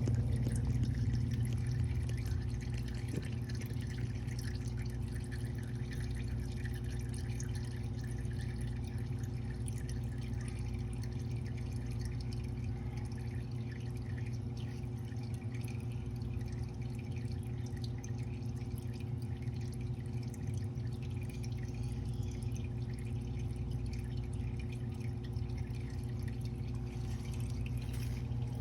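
Used engine oil dripping and trickling from the 2012 Lexus RX 350's engine into a drain pan, over a steady low hum.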